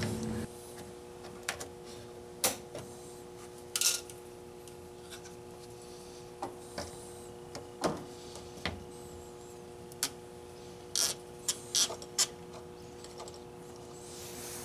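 Scattered sharp clicks and knocks of a tool on metal as the mounting screws of the EVAP canister vent solenoid are worked on, over a steady low hum.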